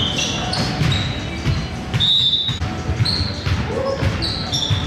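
Basketball game play on a gym floor: a ball bouncing with repeated dull thuds, and players' sneakers giving many short, high squeaks.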